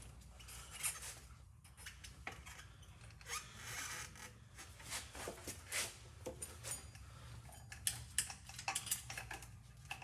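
Irregular metal clicks, clinks and light rattles of hand work on a bicycle as an e-bike drive wheel is fitted into the frame, with a quicker run of clicks near the end.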